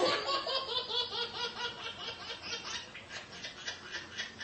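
A baby laughing in a long, rapid run of short laughs, several a second, that slowly fade away.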